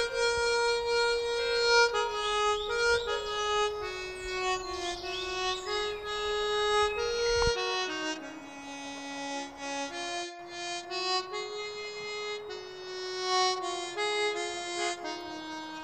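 Background music: a slow harmonica melody of held notes.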